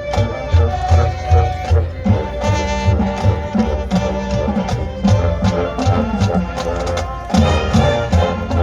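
Marching band playing, with pitched wind parts over a steady drum beat.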